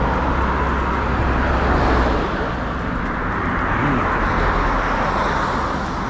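A car passing on the road, a steady rush of tyre and engine noise that is loudest about two seconds in and then slowly fades.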